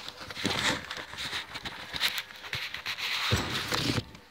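Cardboard boxes being handled and shifted: rustling and scraping with scattered knocks, and a couple of dull thumps about three seconds in.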